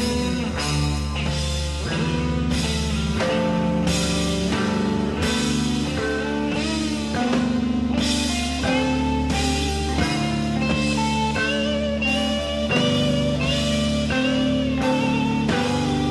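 Instrumental stretch of psychedelic rock: a band with electric guitar and drums, the lead guitar playing bending, sustained lines over a steady bass and beat.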